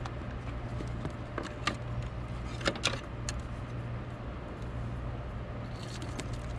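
Steady low hum with a handful of sharp clicks and ticks between about one and a half and three and a half seconds in.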